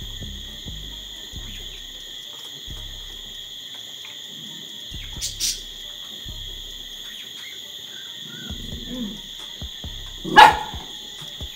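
Steady high-pitched chorus of crickets, with a single loud dog bark near the end.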